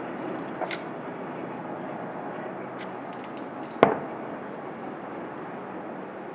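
Single sharp bang of a distant aerial firework shell about four seconds in, over a steady background hiss.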